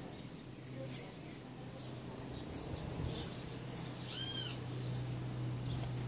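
Bananaquit giving thin, very high call notes, each a quick downward slide, about once a second, five times. One lower, arched chirp comes about four seconds in, over a steady low hum.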